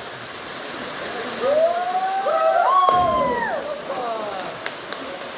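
Water running steadily. A drawn-out vocal call rises and falls in pitch for about two seconds in the middle, with a single sharp knock partway through it.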